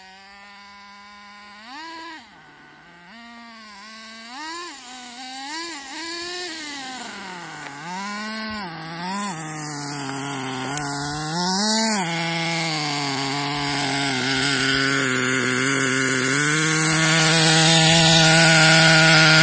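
HPI RC truggy's 4.6 cc two-stroke nitro engine, revved in repeated short bursts with the pitch rising and falling, growing louder as the truggy comes closer. About three-quarters of the way through it settles into a steady, loud idle close by.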